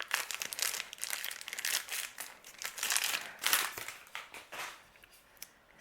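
Toy packaging crinkling and rustling as it is handled and opened, an irregular run of crackles that dies away about four and a half seconds in.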